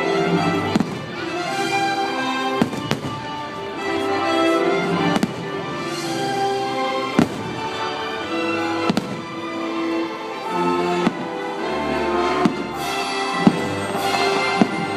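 Fireworks show: about a dozen sharp firework bangs at irregular intervals over a loud, sustained orchestral show soundtrack.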